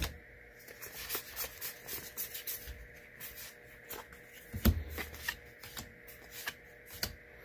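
Magic: The Gathering trading cards being flipped through by hand: a run of light, irregular card slaps and rustles, with one heavier knock a little past halfway.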